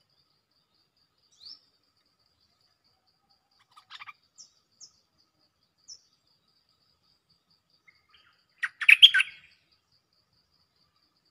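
Stripe-throated bulbul calling: a few short, thin chirps over the first six seconds, then a loud, rapid burst of notes about nine seconds in, over a faint, steady, fast ticking.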